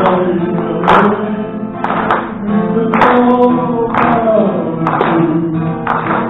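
Acoustic guitar strummed live, one chord struck about once a second with the strings ringing on between strums.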